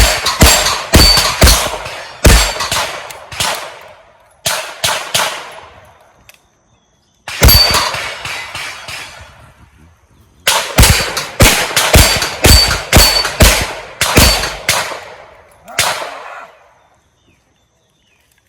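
Revolver fired in quick strings of shots at a practical shooting stage, with short pauses between strings and a thin metallic ring after many shots. The shooting stops about sixteen seconds in.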